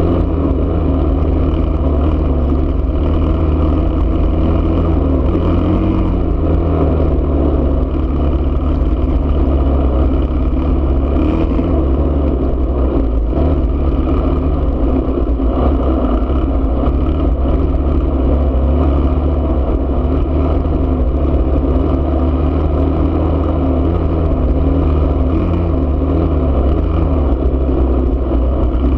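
Enduro motorcycle engine running at a steady riding pace, its speed rising and falling slightly, heard from a camera on the bike, with a heavy low rumble of wind on the microphone.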